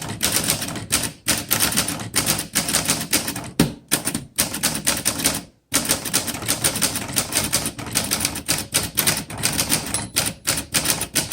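1940 Corona Standard manual typewriter being typed on: a quick, steady run of keystrokes with the typebars snapping against the platen, broken by one short pause about halfway through.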